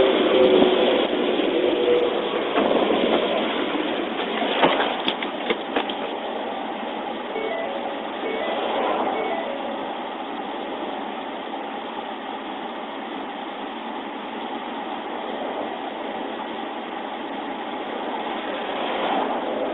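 Steady roadside vehicle noise picked up on a police dashcam recording, thin-sounding, with a few sharp clicks about five seconds in.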